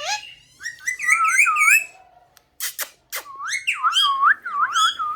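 Pet parrot whistling a run of warbling up-and-down notes, broken about halfway by a few sharp squawks or clicks, then more warbling whistles.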